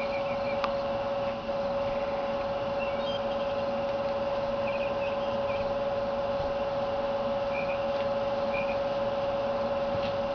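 A steady mid-pitched hum, with a few faint, short high chirps scattered through it.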